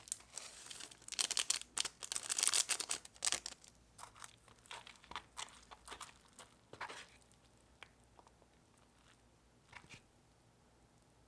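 Crinkling and tearing of instant-noodle plastic packaging, dense for the first few seconds, then thinning to scattered crackles and a last click.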